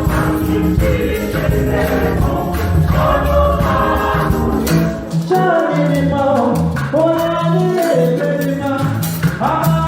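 Choir singing gospel music over a rhythmic beat with shaken percussion; the accompaniment changes about five seconds in.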